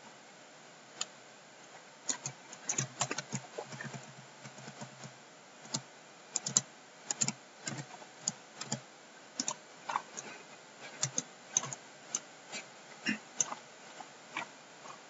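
Computer keyboard keys being pressed: an irregular run of short clicks starting about a second in, some tapped in quick clusters.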